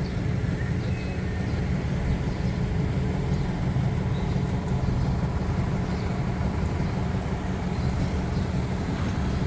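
Steady low vehicle rumble with no clear changes.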